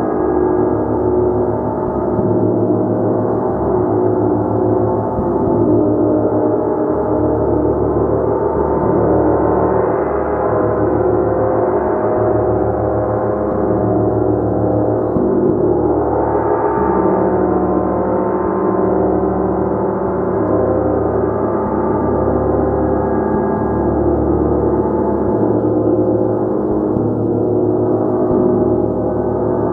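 Gong played continuously: a dense, steady wash of many overlapping sustained tones, the low hum pulsing as it is kept rolling, with small swells but no pause.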